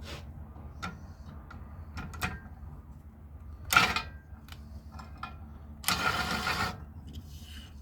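Hand tools working on a brass valve: scattered metallic clicks and taps, a loud ringing clank about four seconds in, then a scraping stretch lasting nearly a second.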